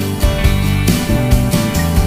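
Background music with held notes over a steady beat.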